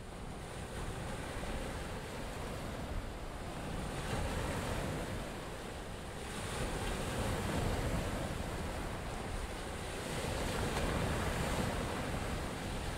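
Small sea waves washing onto a shore: a steady wash of surf that swells and eases every few seconds.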